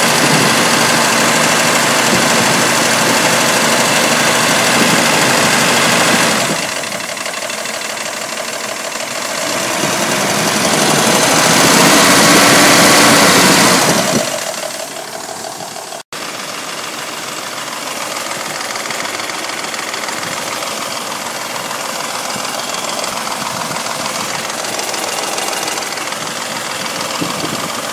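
Mercedes M117 5.0-litre V8 running with a ticking rattle from the passenger-side bank, which the owner suspects comes from the hydraulic lifters. Midway the revs rise and fall once, then it drops back to a steady idle.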